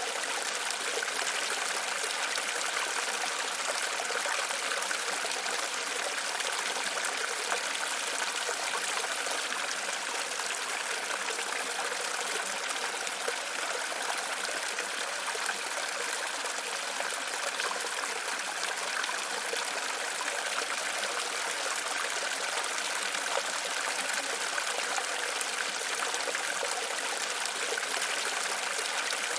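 Water falling and running over rocks, a steady even rush with no breaks.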